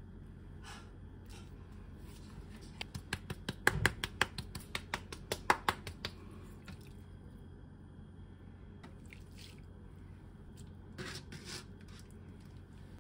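A small spice jar shaken over fried cheese cutlets: a quick run of sharp ticks and taps lasting about three seconds, starting a couple of seconds in. A few softer clicks follow near the end.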